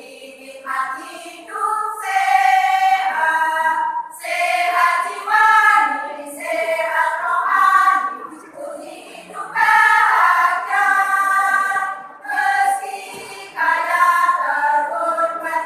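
A choir singing in sung phrases, with short breaks between phrases about every three to four seconds.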